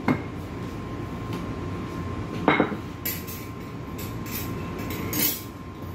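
Kitchen clatter: a pot and dishes being knocked and set down three times, the loudest about halfway through, over a steady low hum with a faint high whine.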